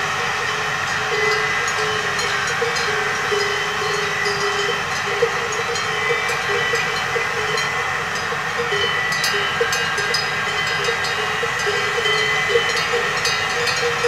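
Cowbells clanking irregularly as cows graze, over the steady hum of a generator.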